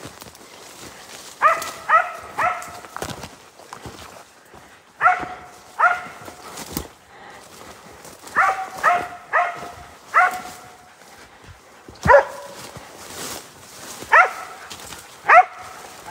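West Siberian laika barking at a bear up a tree: sharp barks in short runs of one to four, about a dozen in all, with pauses of a second or two between runs.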